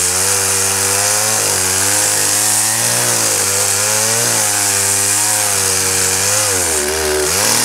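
Petrol chainsaw cutting through a wooden pole, the chain hissing through the wood while the engine pitch sags under load and picks up again several times. Near the end the engine drops sharply, then settles lower as it comes off the cut.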